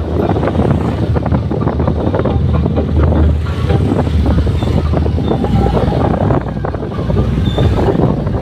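Wind rumbling on the microphone of a moving motorbike, over the motorbike's engine running, with other motorbikes passing close by.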